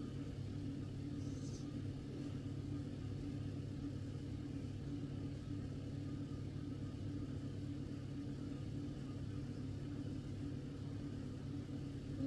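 Steady low hum with a constant low tone running underneath, with no change.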